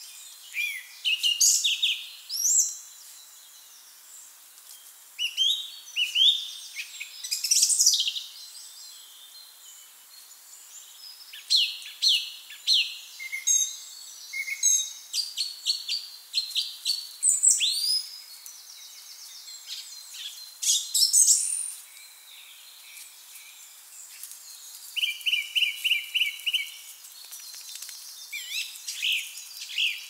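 Song thrush singing: short phrases in which notes are repeated, some shrill and squeaky, others clear fluty whistles, with pauses of a second or two between phrases. Near the end one phrase is a quick run of about six identical notes.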